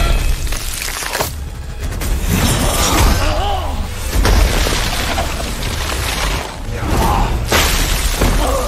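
Film fight sound effects: heavy hits and ice shattering, with short vocal cries from the fighters over a musical score.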